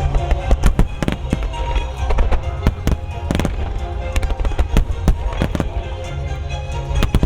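Starmine fireworks display: shells bursting in rapid succession, several sharp bangs a second, over music with a steady bass.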